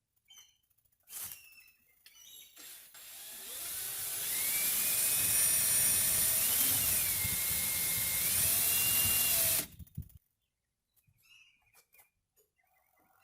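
Power drill driving a screw into a metal door: the motor whine swells in, runs for about six seconds with its pitch dipping and recovering as the screw bites, then stops abruptly. A few light clicks come before and after it.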